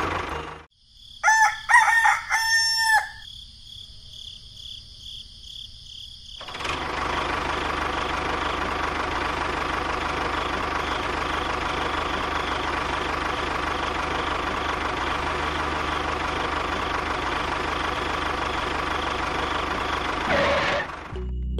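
A rooster crows about a second in. A few seconds later a small motor starts running steadily and keeps going until just before the end.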